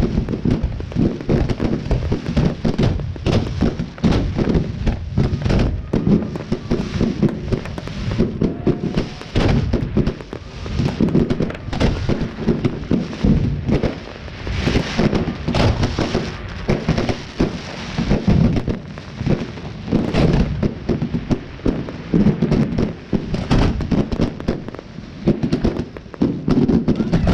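Fireworks display: a dense, continuous barrage of shell bursts and crackle, the bangs coming several times a second, one on another.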